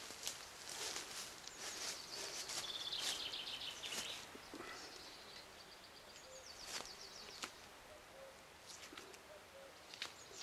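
Songbirds singing, with short fast trills of high notes repeated every few seconds. Under them come intermittent rustling and tearing noises as the hide is pulled and worked off a hanging roe deer carcass.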